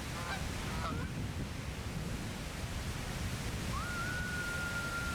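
Steady rushing of a waterfall with a few short honking calls in the first second. About four seconds in, a single long high tone starts, rising quickly and then holding while sinking slowly, like a distant siren.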